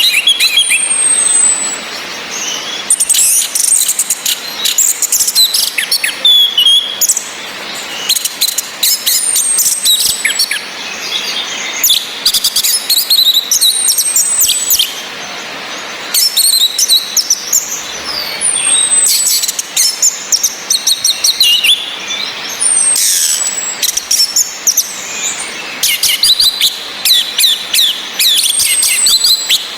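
Orange-headed thrushes: repeated loud bursts of varied, chirping song, with a thin, high falling whistle every few seconds, over a steady background hiss of rain.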